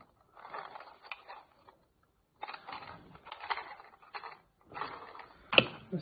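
Small plastic desk vacuum being handled, plastic clicking and scraping in three short stretches, with a sharper click about five and a half seconds in.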